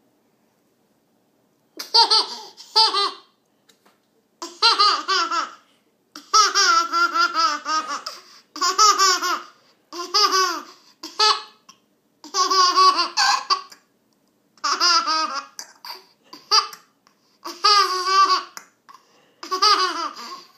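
An 11-month-old baby laughing in about nine high-pitched bouts of a second or two each, beginning about two seconds in.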